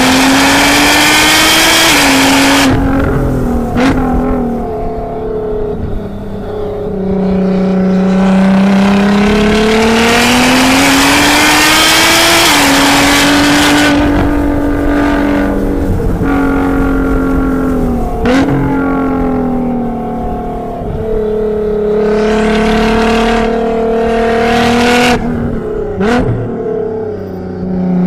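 Nissan GT-R's twin-turbo V6 under hard track driving, revving up and down through the gears. The pitch climbs under acceleration, drops suddenly at several gear changes and falls away when the driver lifts.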